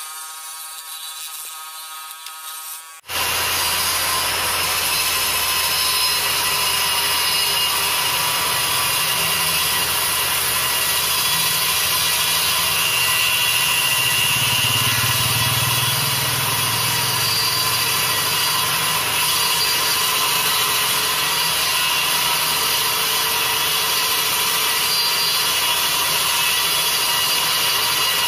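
An electric scroll saw buzzes steadily for about three seconds, then a sudden change to the louder, steady noise of a power saw running and cutting a cork handle blank of stacked rings threaded on a metal rod and held in a wooden jig.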